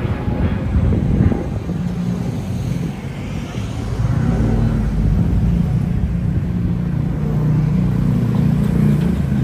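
Street traffic: a motor vehicle's engine running close by, growing louder about four seconds in.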